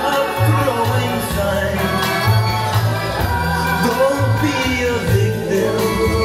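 A recorded Latin-flavoured song played back over a hi-fi system and heard in the room. A bass line repeats in short notes under the instruments, between sung lines.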